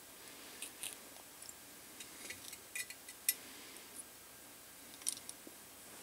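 Faint, scattered light clicks and taps of hands handling a small printed circuit board, solder wire and a soldering iron during soldering, the sharpest click a little after three seconds in and a short cluster around five seconds in.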